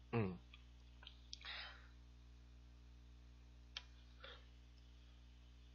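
Quiet room under a steady low electrical hum: a brief vocal sound right at the start, then a few faint sharp clicks and a couple of short breaths.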